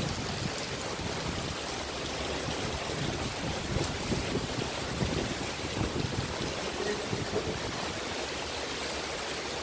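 Steady rain falling: an even hiss with uneven low rumbling underneath.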